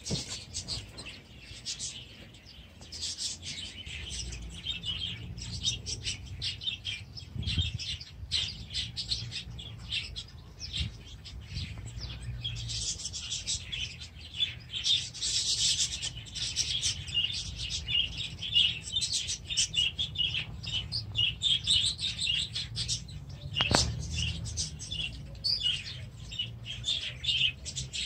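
Canaries singing: a continuous stream of fast, high twittering trills and chirps, with one sharp click about three-quarters of the way through.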